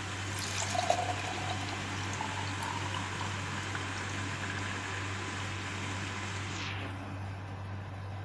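Frothy green mint drink poured from a jug into a glass, a splashing stream with a faint tone that rises in pitch as the glass fills. The pour stops about seven seconds in.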